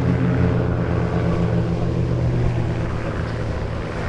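Piston engines of three propeller aerobatic biplanes (a Pitts S1 Special, an Ultimate 10-300 and a Christen Eagle II) flying in close formation, a steady drone that thins and grows a little quieter near the end.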